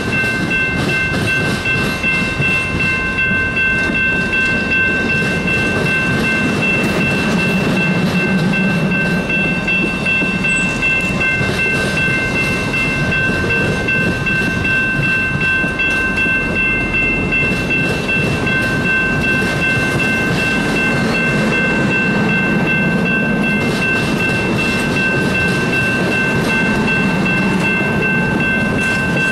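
CSX business train passenger cars rolling past: a steady rumble of steel wheels on rail, with a steady high ringing tone over it.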